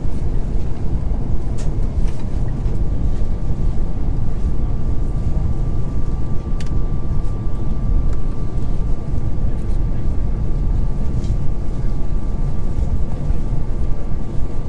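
Steady low rumble of an Airbus A350's cabin in flight on descent: airflow and engine noise heard from inside the cabin. A thin steady whine comes in about two seconds in and holds.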